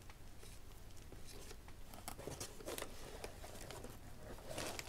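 Faint plastic rustling and crinkling with small clicks as a plastic Blu-ray case is handled, a little louder about halfway through and near the end.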